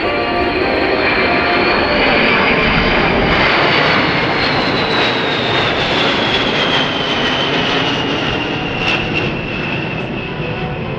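Boeing B-52H Stratofortress's eight Pratt & Whitney TF33 turbofan engines in a flyover: a steady jet roar with a high whine that falls in pitch as the bomber passes, the sound slowly fading in the last few seconds.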